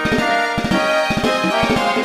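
Polyphonic MIDI ringtone played through the ZTE R221 phone's soundfont: synthesized melody notes over a repeating low bass-and-drum pattern.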